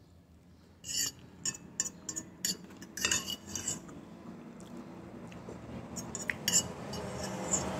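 Metal fork clinking and scraping against a glass bowl, a scattered series of short clinks as it picks at food.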